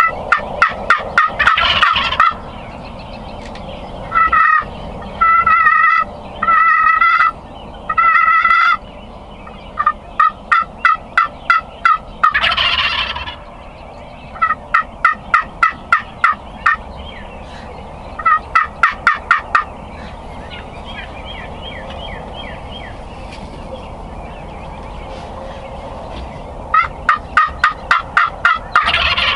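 Merriam's wild turkey toms gobbling again and again, each gobble a fast rattling burst, with a run of four short held calls about four to nine seconds in.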